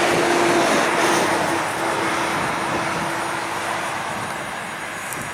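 An aircraft engine running steadily with a droning tone, loudest about a second in and easing off slightly after that.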